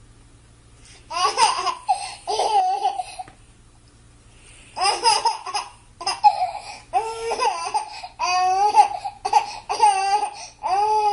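Baby laughing in repeated bursts of high-pitched laughter, with a short pause about three seconds in.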